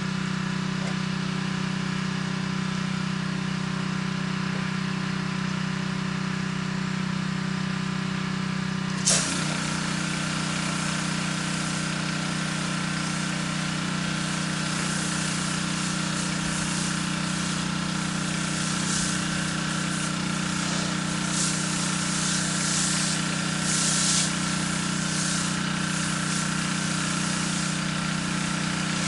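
Petrol pressure washer engine running steadily. About nine seconds in, the water spray starts with a sudden hiss, and the spray carries on over the engine drone.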